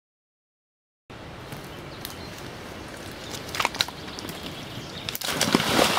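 About a second of silence, then the steady outdoor rush of a riverbank, with scattered sharp clicks and rustles of someone pushing through brush on foot. It grows louder about five seconds in.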